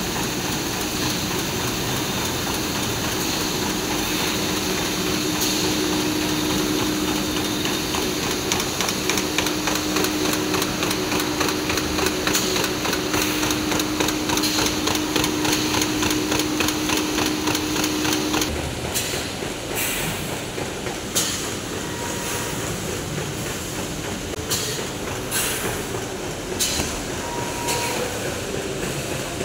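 Fengchi GW-1450BP fully automatic flute laminator running at production speed: a rapid, even clatter of sheets and machinery over a steady hum. About two-thirds of the way through, the hum stops and the clatter thins to scattered knocks.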